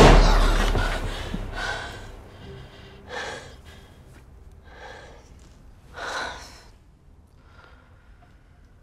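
A loud hit right at the start cuts off the tense film score, which fades over the first two seconds. Then a woman takes five heavy, gasping breaths about a second and a half apart, the last one faint.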